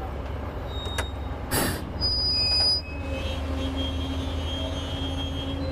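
225-ton crawler crane working with a steady low engine rumble. About a second in there is a click, then a short hiss, then a loud high-pitched metallic squeal lasting under a second, followed by a steady whine.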